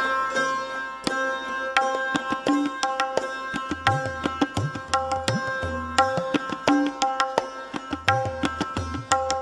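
Tabla playing a rhythmic passage over the sarod's ringing strings and a steady drone. From a few seconds in, the bayan's deep bass strokes come in, bending up and down in pitch.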